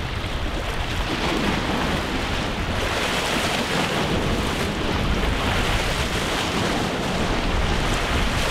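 Steady wind buffeting the microphone, rumbling, with waves washing on the shore beneath it.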